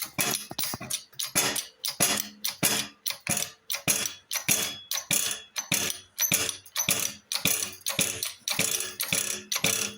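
Custom seatpost puller being worked under heavy load to draw a stuck seatpost: a steady run of sharp metallic clicks, about three a second, with a faint metallic ring underneath.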